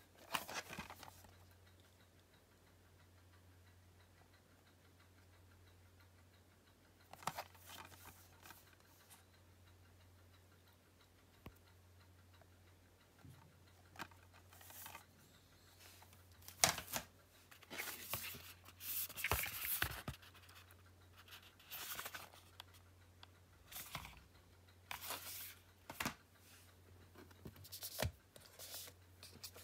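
Blu-ray box set packaging being handled by hand: scattered scratches, rustles and light clicks of cardboard and plastic, sparse at first and busier in the second half, over a steady low hum.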